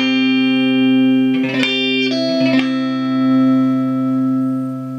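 Homemade electric guitar strummed through a small Fender guitar amp. Several chords are struck in the first three seconds, then the last chord rings on with a clean tone.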